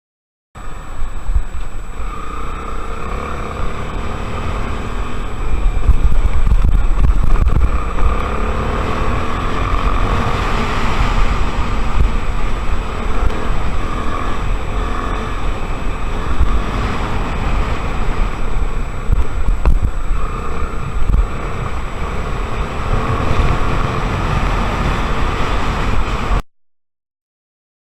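Single-cylinder four-stroke engine of a Honda XR250 Tornado trail motorcycle running under load while riding, with wind buffeting the microphone; the sound cuts out briefly near the end.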